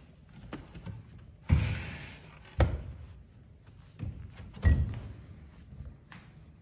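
Thunks and knocks of a retractable bleacher's floor access panel being worked loose and lifted out: a short scraping rush about a second and a half in, a sharp knock just after, and two heavy thuds between four and five seconds in.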